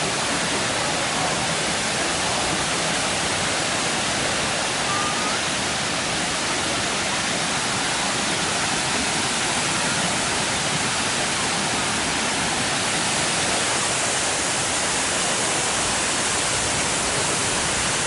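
Steady rushing of Shiraito Falls: many thin streams of water pour down a wide rock wall into the pool below.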